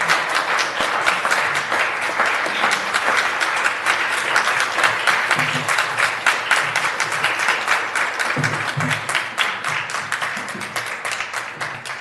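Crowd applauding a newly sworn-in council member: dense, steady clapping that thins out near the end.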